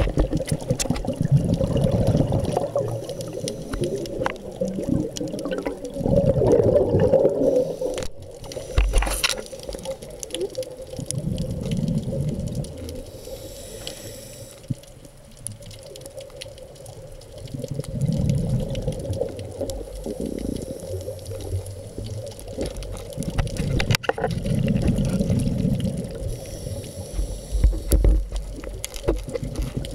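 Scuba regulator exhalations heard underwater: bursts of bubbles rumbling every five or six seconds, with a few sharp knocks in between.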